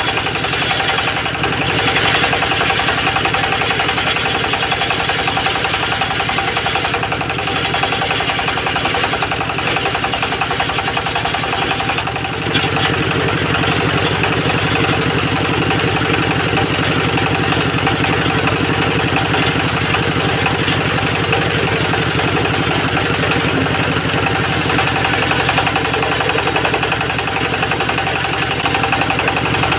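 Homemade engine-driven circular sawmill running steadily, its blade sawing teak. The sound dips briefly about twelve seconds in, then carries on.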